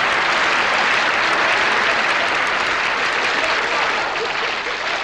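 Large audience applauding steadily, easing off slightly near the end.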